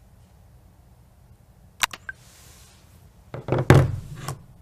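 Handling noise: a sharp click about two seconds in, then a short cluster of knocks a little later, the loudest near the end, as phones and hands are set down on a tabletop.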